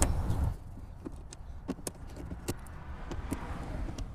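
Scattered light clicks of a Phillips screwdriver working small screws out of a plastic dome-light base in a headliner, with a low rumble in the first half second.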